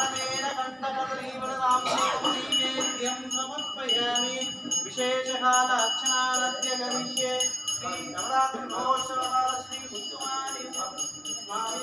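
Brass puja hand bell rung rapidly and continuously, its high ringing tones sustained over devotional music with a melodic line.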